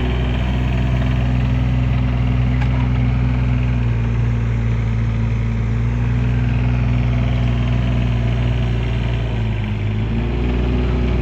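Mini excavator's diesel engine running steadily. Its pitch sags briefly near the end and then comes back up.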